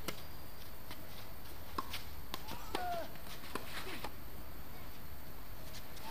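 Tennis ball struck by a racket on a serve, then several sharp pocks of racket hits and ball bounces over the next few seconds. Another hard serve is struck right at the end, the loudest hit.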